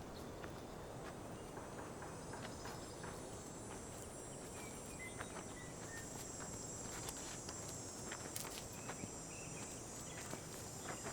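Steady, high-pitched chirring of insects such as crickets, with light scattered footsteps and small clicks through it.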